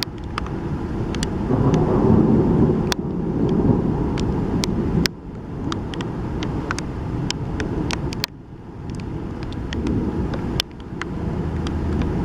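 Wind buffeting the microphone outdoors: a low rumble that swells in gusts and cuts off abruptly three times, with scattered sharp ticks throughout.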